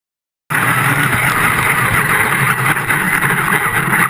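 Radio-controlled monster truck running hard on sand, its motor and spinning tyres throwing sand, a loud steady noise with a thin high tone through it. It starts abruptly about half a second in.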